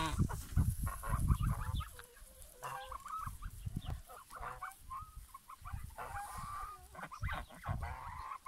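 A flock of domestic geese honking and chattering in many short calls, mixed with chickens clucking. Low wind rumble on the microphone, heaviest in the first couple of seconds.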